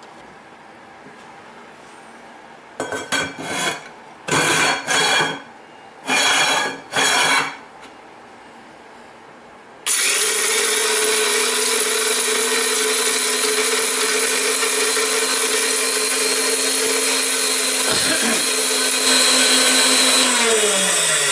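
A few short bursts of clatter, then the High Speed Mill tabletop grinder starts abruptly about ten seconds in and runs loud and steady with a high whine, pulverizing dried umeboshi pits into powder. Near the end its pitch starts to fall as the motor winds down.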